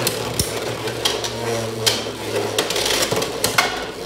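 Two Beyblade X spinning tops whirring in a plastic stadium, with a string of sharp, irregular clacks as they strike each other and the stadium walls.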